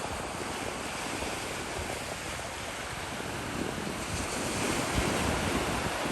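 Sea waves washing in as a steady rush, with wind buffeting the microphone in low rumbling gusts that grow stronger about four seconds in.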